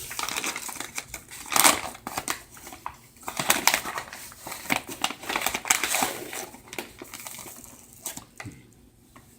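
Irregular rustling and crunching as a quarter cup of sugar is scooped and measured out, trailing off near the end.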